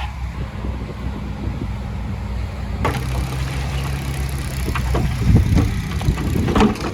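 Heavy diesel engine of earthmoving machinery running steadily; its tone changes suddenly about three seconds in. Clattering knocks come in over the last two seconds.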